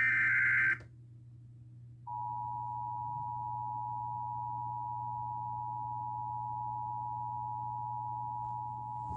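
End of an Emergency Alert System SAME data header: a short, loud warbling digital data tone. About two seconds in, after a brief pause, the EAS attention signal begins, a steady two-tone alert tone (853 and 960 Hz) that holds unchanged, with a low steady hum underneath.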